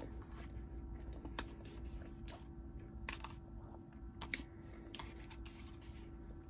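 A metal fork clicking, tapping and scraping against a plastic takeout bowl while cutting into soft biscuits and gravy, with soft chewing between the clicks. A faint steady hum sits underneath.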